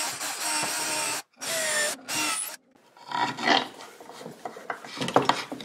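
Cordless drill driving wood screws into hardwood in two runs of about a second each, its motor whine rising in pitch as the second run ends. After a short pause, a hand tool scrapes and rubs in the wood at a screw hole.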